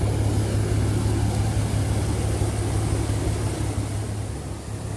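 Creek water rushing steadily over a low spillway and rocks, with a Toyota Tacoma pickup's engine idling underneath as a steady low hum.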